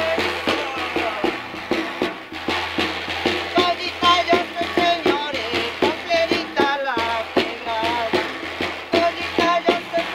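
A woman singing a copla in a high, wavering voice while beating a steady rhythm on a caja, the Andean frame drum.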